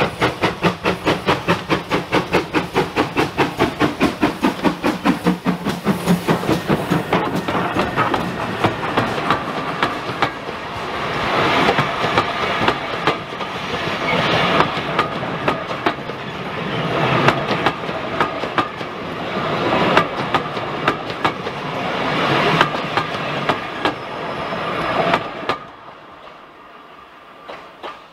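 Steam locomotive working past with a regular chuff of exhaust beats, about four a second, followed by a rake of passenger coaches rolling by with the clickety-clack of wheels over rail joints. The sound drops away suddenly near the end.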